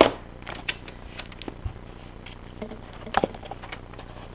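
Hands handling a cardboard phone box and its packaging: scattered light clicks, taps and rustles, loudest right at the start and again about three seconds in.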